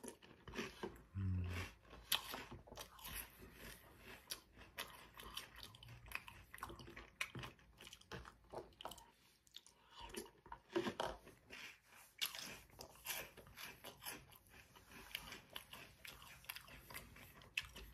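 Close-up chewing and crunching of Reese's Puffs cereal in milk: irregular crunches and wet mouth sounds, bite after bite.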